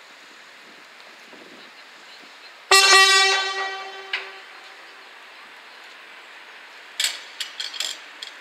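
NS DM '90 diesel railcar sounding its horn: one single-tone blast of about a second that fades away. Several short sharp knocks follow near the end.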